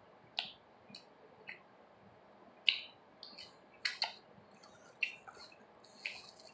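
Close-miked eating sounds: a scattering of short, sharp clicks and smacks, roughly one a second, while scrambled cheese eggs are forked up and chewed.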